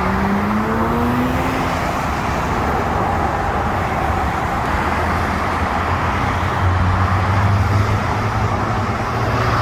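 Steady road traffic noise from the surrounding freeway. A vehicle's engine tone rises in the first two seconds, and a low rumble swells near the end.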